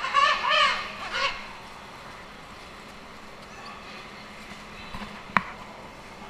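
Penguin calling: a quick series of harsh, rising-and-falling honking notes in the first second or so. Then low background noise, broken by a single sharp knock about five seconds in.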